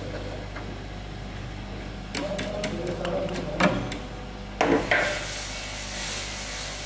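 Irregular clicks and knocks from hands adjusting a bottle-filling line, pushing plastic jars along the conveyor and fitting a sensor bracket, clustered from about two to five seconds in with the sharpest knocks near the end, over the machine's steady hum.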